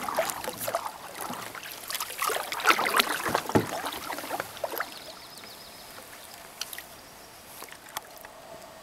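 Canoe paddle strokes in calm water: irregular splashing and dripping from the paddle blade, which die away about halfway through as the canoe glides in, leaving it much quieter.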